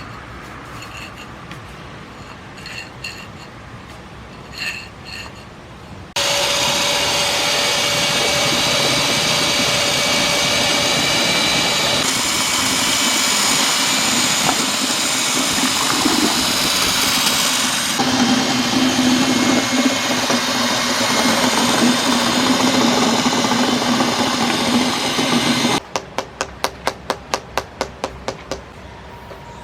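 A power tool runs loudly and steadily for most of the stretch, starting and stopping abruptly after a few light taps. Near the end comes a quick run of sharp taps, about four a second.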